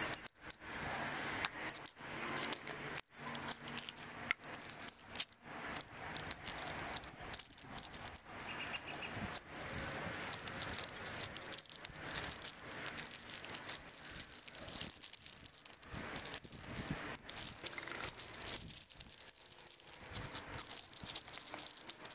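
Hands handling tape and plastic: electrical tape pulled off the roll and snipped with scissors around a sample bottle's lid, and a plastic bag crinkling as the bottle is wrapped, with scattered small clicks and knocks.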